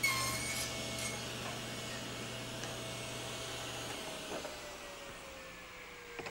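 Table saw blade cutting through a short wooden piece at the start. About four seconds in, the saw's steady hum stops and the blade and motor wind down with a slowly falling whine.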